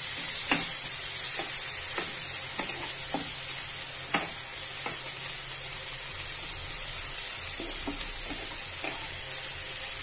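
Prawns, onion and green chillies sizzling in butter in a non-stick kadai while a spatula stirs them. A steady hiss runs under scattered clicks and scrapes of the spatula on the pan, the sharpest about half a second in and about four seconds in.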